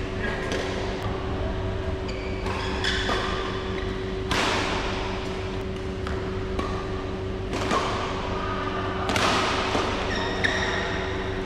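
Badminton rally: rackets striking the shuttlecock in repeated sharp hits about once a second, with players' shoes squeaking on the court mat, over a steady hum.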